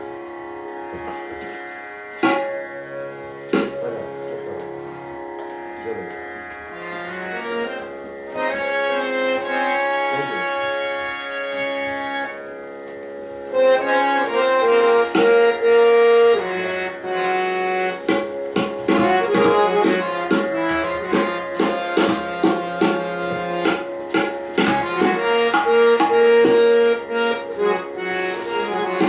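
Harmonium playing the nagma, a repeating melody with steady held notes, for a tabla solo in teen taal. The tabla gives only a few single strokes at first, then comes in fully about halfway through with dense, fast runs of strokes that grow busier toward the end.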